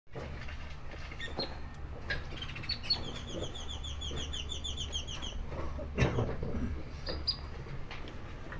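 A small bird chirping in a quick run of short, high chirps, about eight a second for two and a half seconds, over a steady low hum. Scattered clicks and knocks sound throughout, the loudest about six seconds in.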